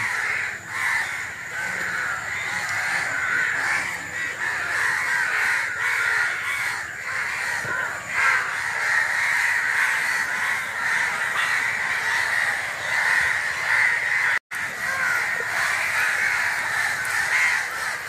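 A continuous din of many birds calling at once, a dense chorus of cawing from a large flock in the mangroves. It drops out for an instant about two-thirds of the way through.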